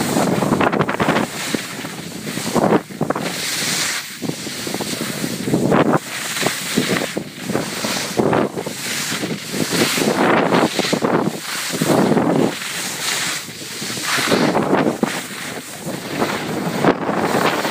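Skis scraping over packed, churned snow on a downhill run, swelling and fading every second or two as the skier turns, with wind rushing over the microphone.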